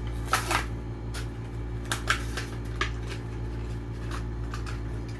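Toy car blister-card packaging being handled and opened: a series of sharp plastic clicks and crinkles, the loudest a little after two seconds in, over a steady low hum.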